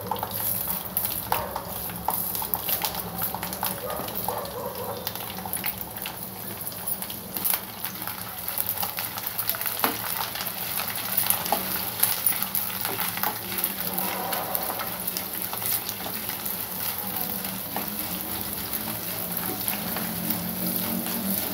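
Hot oil sizzling as curry leaves, garlic cloves and chana dal fry in a pan, with many small pops and crackles, while a spatula stirs them.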